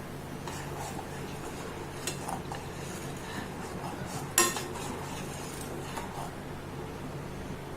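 Metal spoon clinking against a cooking pan while stirring: several light taps and one sharper ringing clink about halfway through, over a steady low hum.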